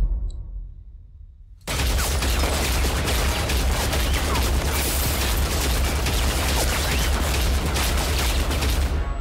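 Action-film soundtrack: after a quiet opening, dense rapid gunfire starts suddenly about a second and a half in and keeps on over a deep rumble, easing off near the end.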